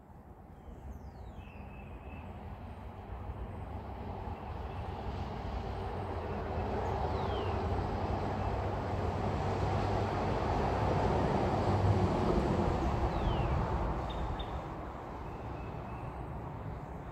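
A vehicle passing: a steady rumble and rush that swells slowly to its loudest about twelve seconds in, then fades.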